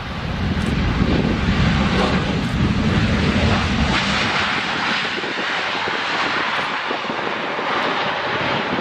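Boeing 737-800's CFM56-7B jet engines and airframe noise during the landing rollout just after touchdown, a loud steady rush that swells over the first second. The deep rumble thins after about five seconds, leaving a higher hiss as the jet rolls away.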